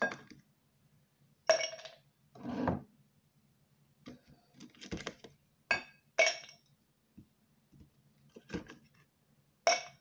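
Glassware and a utensil clinking as the shake is prepared: several sharp clinks, each with a brief ring, a few seconds apart, with softer handling sounds between them.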